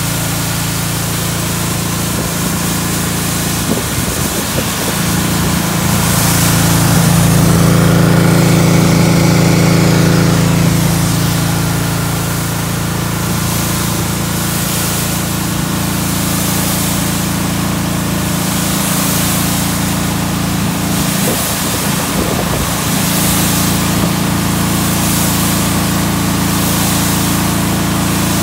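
Shinsho SJE-1616SA soundproofed engine-driven pressure washer running steadily while its lance sprays a hissing high-pressure water jet onto pavement. It grows louder for a few seconds about a quarter of the way in. Later the hiss of the spray swells and fades regularly as the jet is swept back and forth.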